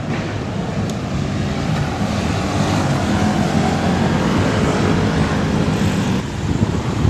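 City street traffic: vehicles passing close by, a steady rumble of engines and tyres that swells slightly midway.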